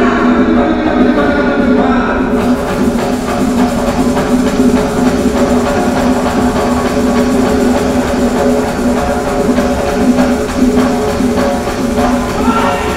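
Loud music with drums and percussion, with held notes underneath and a steady beat.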